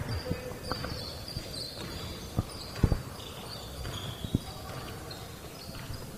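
Basketball game on a hardwood gym court: a few scattered thumps of the ball and players' footsteps on the wooden floor, with faint short sneaker squeaks over the quiet hum of the gym.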